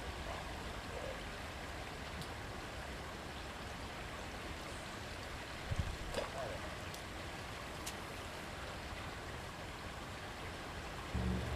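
Creek water running steadily, with a few soft knocks about halfway through and a low rumble starting near the end.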